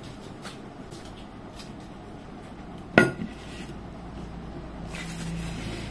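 A ceramic dinner plate set down on a hard tabletop about three seconds in: one sharp clink with a brief ring, and a smaller knock just after.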